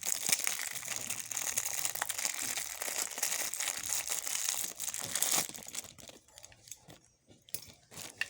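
Plastic packaging crinkling and rustling as it is handled for about five seconds, then a few light clicks and rustles.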